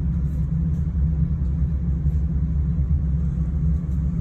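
Steady low rumble with a hum, unchanging throughout.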